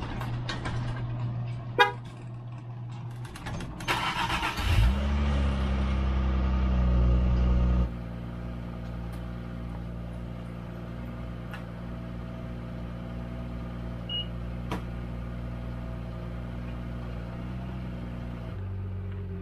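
A car engine starting: a few clicks and knocks, then about five seconds in the engine catches and its hum rises quickly and holds at a raised idle for about three seconds. It then drops abruptly to a steady, lower idle.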